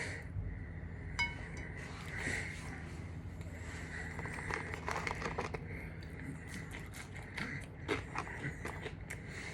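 Close-up eating sounds from a KFC meal: bites and chewing with small crunches, clicks and light crinkling of the wrapping. There is one short ringing clink about a second in.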